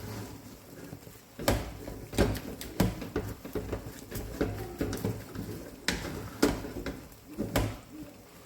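Thick, stiff pounded yam fufu being stirred hard in a pot: irregular dull knocks and scrapes of the stirrer against the pot, one every second or so.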